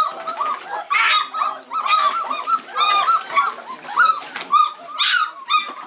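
A litter of four-and-a-half-week-old Dutch Shepherd puppies crying and whining together in their bath water. Short, high, rising-and-falling cries come several a second from many pups at once and overlap.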